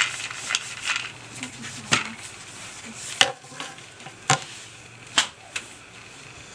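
Wooden handloom knocking and clacking as the weaver works the flat wooden beater and shed sticks to pack in the weft: about half a dozen sharp knocks at uneven intervals, the loudest about three and four seconds in, with a light rustle of thread between them.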